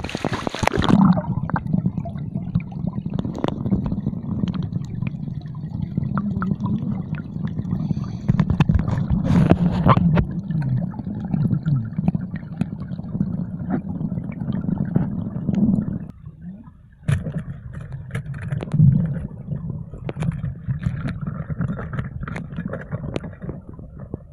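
Muffled underwater sound: a continuous low rumble with bubbling and many small knocks and scrapes of handling. It drops briefly quieter about 16 seconds in.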